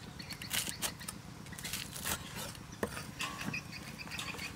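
Steel cleaver chopping crisp fried chicken on a wooden chopping block: a string of irregular knocks as the blade cuts through the crust and strikes the wood.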